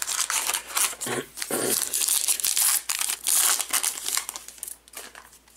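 Wrapper of a 2020 Topps Archives baseball card pack being torn open and crinkled, a run of crackling that dies away near the end.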